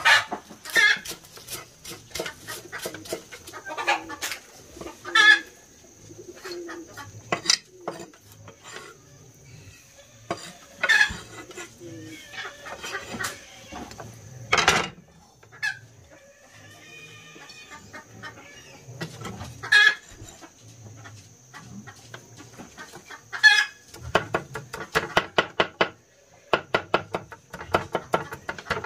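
Chickens clucking and calling, mixed with many short, sharp clicks and taps, which come in a quick run near the end.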